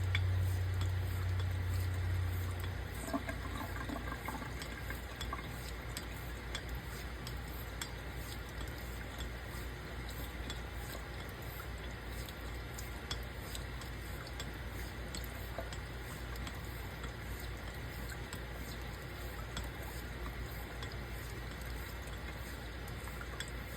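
Straight razor being honed on a wet natural whetstone: faint, repeated scraping strokes with small clicks under a thin film of water. A low hum stops about three seconds in.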